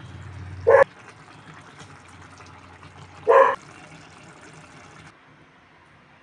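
A dog barks twice, once near the start and again about two and a half seconds later, over the steady bubbling hiss of a pot of soup boiling; the boiling sound drops away about five seconds in.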